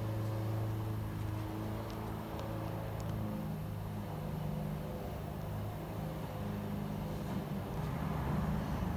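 Steady low mechanical hum, with a few light sharp clicks about two to three seconds in.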